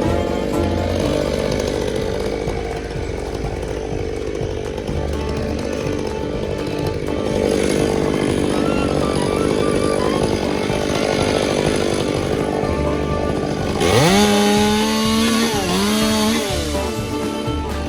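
Chainsaw running, with music playing over it. About fourteen seconds in, the saw revs up sharply to a high whine, dips and revs again before easing off near the end.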